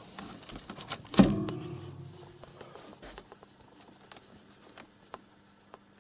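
A sharp knock with a short ringing tail about a second in, then faint scattered clicks and rustling.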